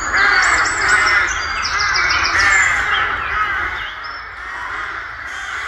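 Many crows cawing at once from a treetop nesting colony, a dense, continuous clamour. Small birds chirp high above it, and the din eases a little after about four seconds.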